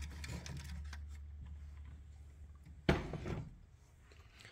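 Plastic LED headlight housing handled and moved across a wooden workboard, with faint scraping and then one sharp knock about three seconds in as it is set down, over a low steady hum.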